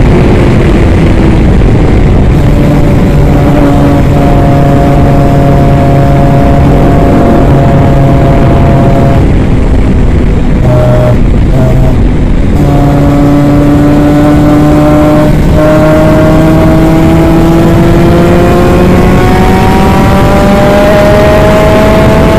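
Twin-cylinder 250cc two-stroke superkart engine, very loud from the driver's seat. Its note drops right at the start and holds, stutters off the throttle about ten to twelve seconds in through a corner, then climbs steadily on the straight, with a brief dip near fifteen seconds that fits a gear change.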